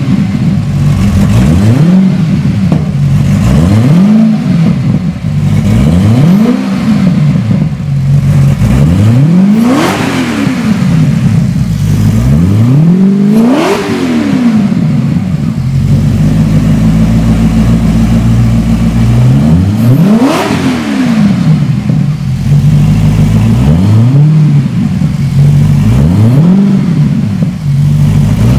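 The Lazareth LM847's 4.7-litre Maserati V8 idling and being revved in quick throttle blips, about eight times, each one a sharp rise and fall in pitch. There is a longer stretch of steady idle in the middle.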